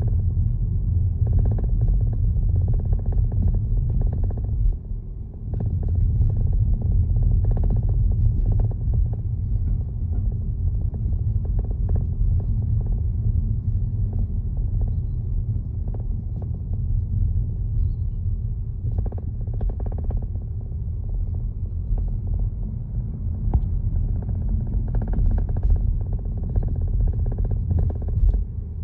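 BMW 320d's four-cylinder diesel giving a steady low rumble with faint scattered ticks, which the owner records as an abnormal noise. The rumble drops away briefly about five seconds in.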